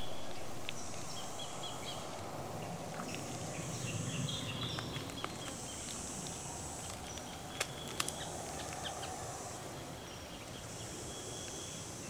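Outdoor riverbank ambience: insects buzzing high in waves lasting a second or two, with short bird calls and a few faint clicks.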